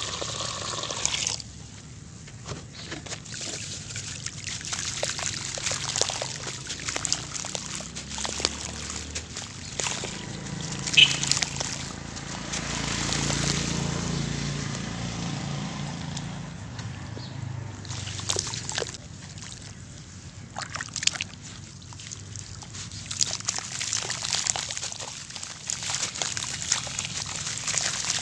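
Water pouring into a hollow of dry sand-cement powder stops about a second in. Then hands slosh and squish in the gritty, muddy water, with small clicks and splashes. Near the end, crumbly clumps of sand-cement drop splashing into the pool.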